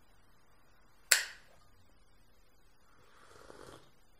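A single sharp snap from the hands about a second in, then a soft sip from a mug near the end.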